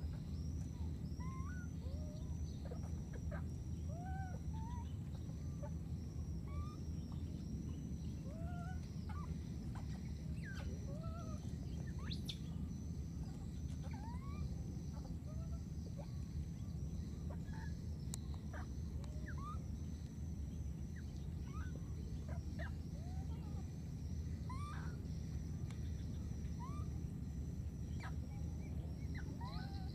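Short, high chirping animal calls, each rising or arching in pitch, come every second or two over a steady, high pulsing trill and a constant low rumble.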